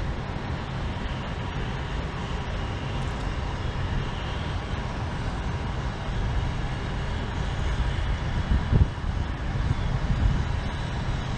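Wind buffeting the microphone: a steady rushing rumble with a stronger gust about nine seconds in.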